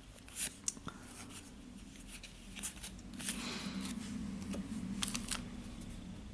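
Soft rustling and a scatter of sharp clicks and crinkles as Yu-Gi-Oh trading cards and a foil booster-pack wrapper are handled, with a denser stretch of rustling in the second half.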